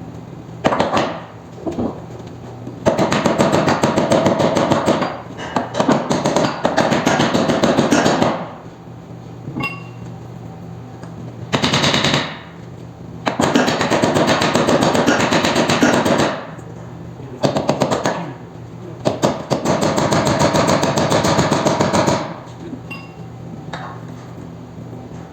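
Power impact wrench hammering in bursts of one to three seconds, six times over, loosening or tightening bolts on a roller coaster wheel assembly. A steady low hum runs underneath.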